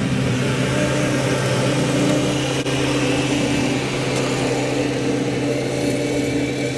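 Kubota tractor's diesel engine running steadily, pulling a Land Pride RCR1872 rotary cutter fitted with new blades, as the tractor drives past and away across the field.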